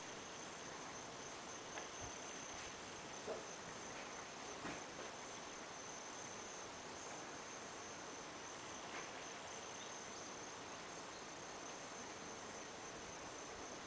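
Insects chirring steadily at one high pitch, with a few faint clicks in the first five seconds.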